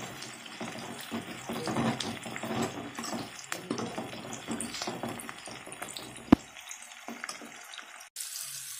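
Shallots and dried red chillies sizzling in hot oil in an aluminium kadai, with a steel ladle scraping and clicking against the pan as they are stirred. A single sharp clink of the ladle on the pan about six seconds in, after which the frying is quieter.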